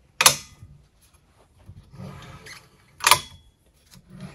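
Folding steel legs of a Craftsman compact sawhorse swung up and locked in place: two sharp clicks about three seconds apart as each spring-loaded tab snaps out into its hole, with a soft scrape of metal between them.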